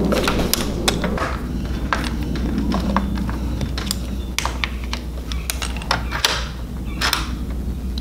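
Irregular metal clicks and clacks of a newly fitted Kwikset doorknob and deadbolt being worked by hand, the latch and bolt moving in and out.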